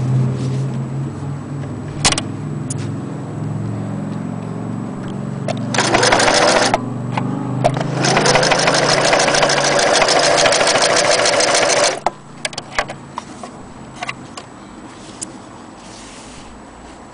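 Singer Tempo 20 electric sewing machine stitching zigzag through denim, its needle beating rapidly. It runs in a short burst about six seconds in, then a longer run of about four seconds from about eight seconds in, and stops suddenly; a few light clicks follow.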